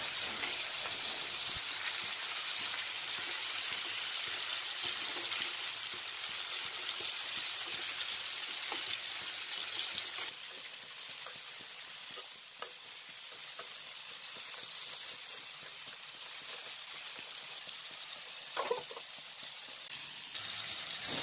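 Marinated chicken pieces sizzling as they fry in butter in a pan, a steady hiss that eases slightly about halfway through. A few light clicks and scrapes come from a spatula turning the pieces over.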